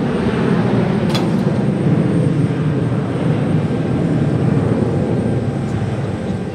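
Embraer ERJ-175 jet's two CF34 turbofan engines at climb power, a steady low rumble as the airliner climbs out after takeoff.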